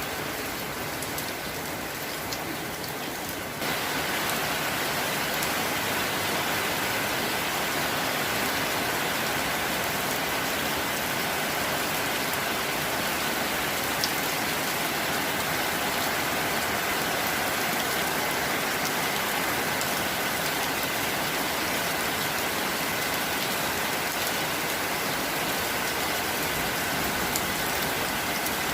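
Rain falling steadily with a dense, even hiss, turning suddenly louder and fuller about three and a half seconds in.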